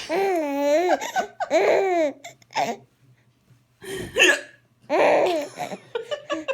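A baby laughing in long, high-pitched squealing peals, with a woman's sharp hiccups between them; the laughter breaks into a quick run of short bursts near the end.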